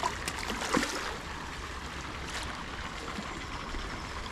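Steady rushing background noise, with a few faint short clicks near the start, a little under a second in, and about two and a half seconds in.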